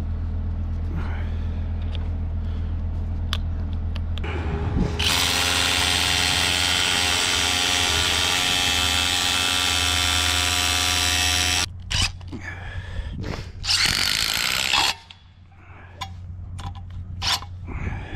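Hilti Nuron TE4-22 cordless rotary hammer drilling into a concrete wall. It runs loud and steady for about six and a half seconds starting about five seconds in, then comes a few shorter bursts. A steady low hum runs under the first few seconds.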